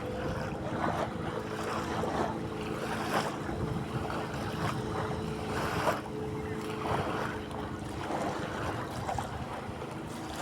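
Sea waves washing and splashing in irregular surges, with wind on the microphone. A faint steady hum sits under the water sound.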